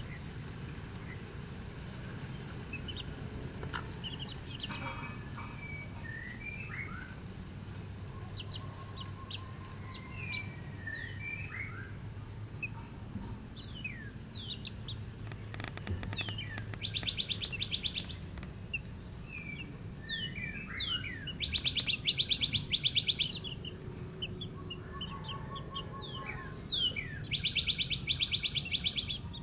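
Young chicks peeping, with short chirps scattered throughout. Three loud rapid bird trills break in during the second half, each lasting about a second and a half.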